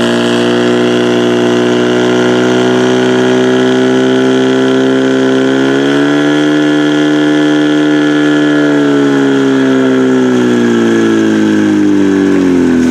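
Portable fire pump engine running at high revs while it pumps water out through the attack hoses. Its pitch climbs about six seconds in, holds, then falls off from about ten seconds on.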